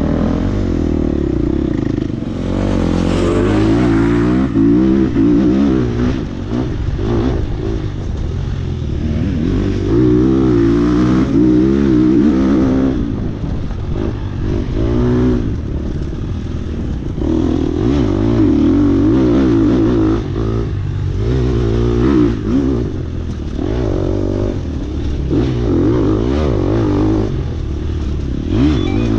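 Dirt bike engine heard from the bike itself, revving up and dropping back again and again as the rider works the throttle along a twisting dirt trail.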